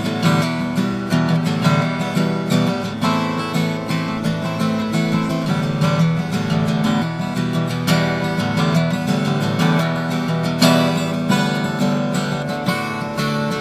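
Acoustic guitar music, strummed steadily with a quick, even rhythm of strokes.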